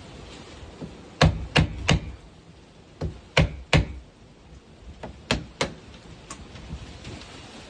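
Tool blows on wood: three quick runs of three sharp strikes each, the runs roughly two seconds apart, then one faint knock near the end.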